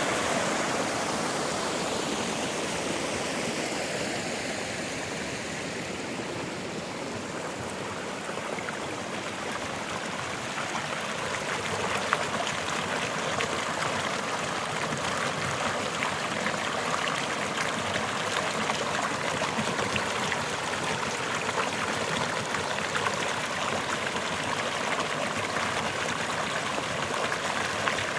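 Babbling forest brook: a steady rush of running water, dipping slightly around six to ten seconds in and then a little fuller.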